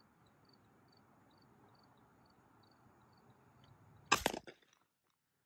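One shotgun shot about four seconds in, a sharp blast with a short trailing echo, fired at a passing dove. Before it there is only a faint outdoor background with a soft regular ticking.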